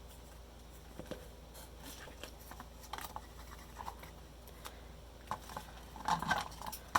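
Faint rustling and light ticks of washi tape being pulled and pressed around the rim of an empty plastic thread spool, with a few louder taps and crackles near the end.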